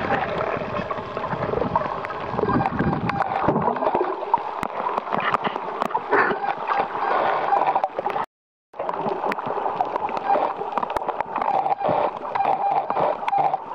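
Underwater water noise picked up by the camera: sloshing and gurgling with a dense crackle of small clicks throughout. The sound cuts out for a moment about eight seconds in.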